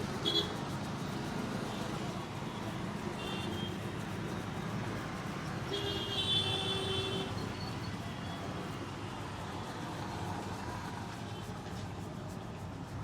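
Steady roadside traffic noise, with a vehicle horn sounding for about a second around the middle and a short beep near the start.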